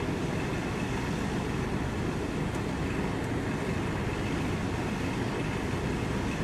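Steady low rumble of a vehicle engine running, with no distinct events.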